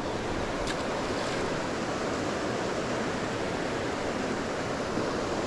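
Mountain creek water flowing steadily over rocks, a constant rushing hiss.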